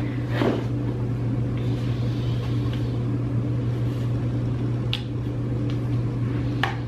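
A steady low hum, with two light clicks, one about five seconds in and one near the end.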